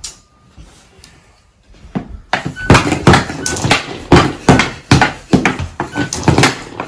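Hockey stick and puck knocking rapidly on a Super Deker stickhandling trainer, starting about two seconds in at several hits a second. A few short high beeps sound among the knocks.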